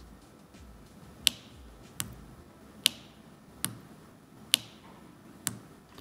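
Tactile pushbutton switch on a breadboard clicking as it is pressed over and over: six sharp clicks, about one every 0.8 seconds.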